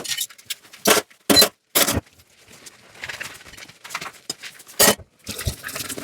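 Dishes knocking and clinking together while being washed: four sharp clinks in the first two seconds and another near the end, with a softer rushing sound between them.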